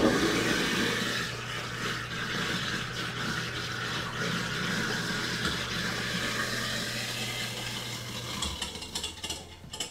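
Kitchen sink garbage disposal running with the tap on, its motor humming steadily under a grinding noise as it grinds down duck feathers rinsed off the breasts; it shuts off near the end.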